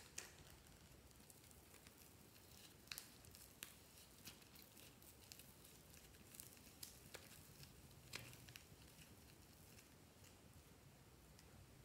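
Near silence, with a handful of faint soft clicks from hands squeezing and pressing slime out of a pink plastic container into a glass dish.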